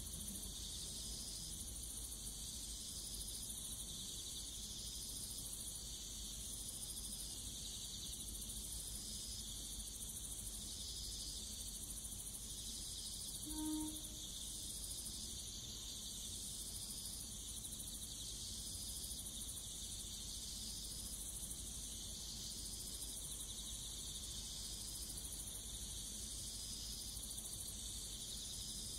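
Insects chirping in a steady chorus that pulses about once a second. About fourteen seconds in, a Kambara Railway train sounds one short, faint horn blast as it departs Takamatsu station.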